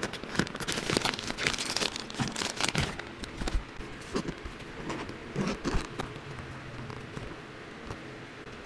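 Thin plastic packaging crinkling as it is handled and pulled off an item, densest in the first three seconds, then scattered rustles and light clicks of handling a fabric carrying case, with a faint steady hum underneath.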